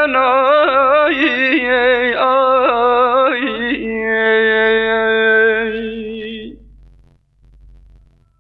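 A single voice singing a wavering, ornamented melody, then holding one long note that fades away about six and a half seconds in.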